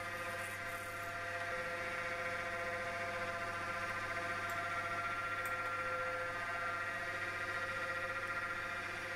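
Manual lathe running at a steady speed with a steady whine from its drive, while a 4.3 mm tapping drill is fed into a spinning aluminium bar.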